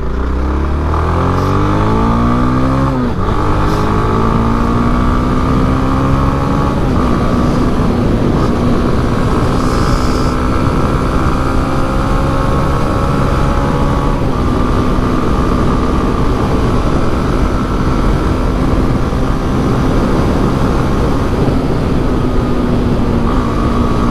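Honda Twister 250's single-cylinder engine pulling away and accelerating through two gear changes, its pitch rising and dropping at each shift, then cruising at a steady speed.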